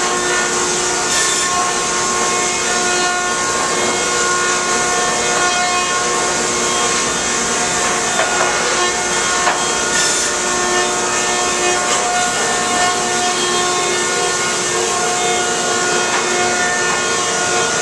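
A 1976 Newman M68 electric planer and trim saw running steadily as boards feed through. The machine gives a constant hum of several steady pitches over a high hiss.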